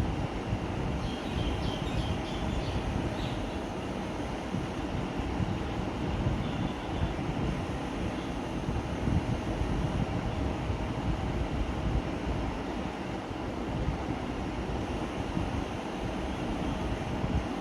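Workshop machinery, such as a CNC lathe, running with a steady low rumble. A few faint high chirps sound about one to three seconds in.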